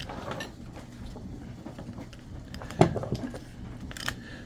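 Scattered light clicks and knocks of a plastic chainsaw recoil starter being handled and its pulley rewound, with one sharper knock a little before the three-second mark.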